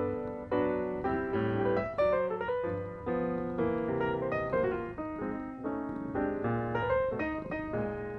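Piano music: a melody of ringing notes over lower sustained notes.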